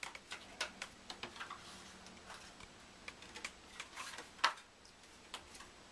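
Light, irregular clicks and taps of a deck of playing cards being handled and slid out of its cardboard box, with one sharper click about four and a half seconds in.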